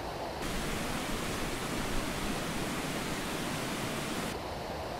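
Water rushing steadily. About half a second in it cuts to the closer, fuller hiss of a small waterfall cascading down a mossy rock face, then cuts back sharply to the lower creek rush near the end.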